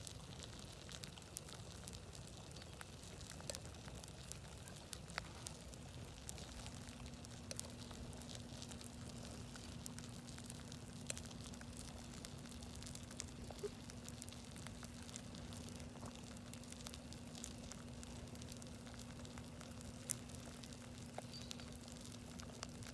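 Campfire crackling faintly, with scattered sharp pops and one louder pop near the end. A low steady hum comes in about six seconds in.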